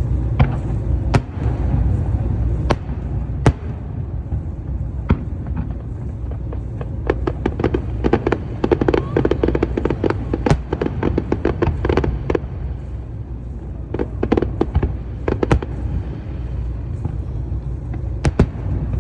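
Aerial fireworks bursting: scattered sharp bangs, then a dense run of crackling reports through the middle, over a steady low rumble.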